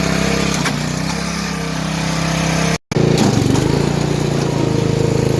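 Sears Lil' Poppy riding mower's engine running steadily under way. It breaks off for a split second about halfway through, then carries on a little louder.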